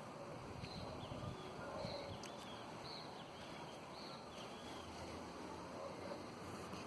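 Faint bird chirps, short high calls about once a second for the first few seconds, over quiet outdoor background noise.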